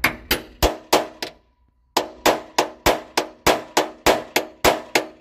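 Hammer blows on a steel punch driving through leather onto a 6 mm nut used as a die, cutting a rivet hole. The blows are sharp and ring metallically: a quick run of four, a brief pause, then a steady run of about eleven at roughly three a second.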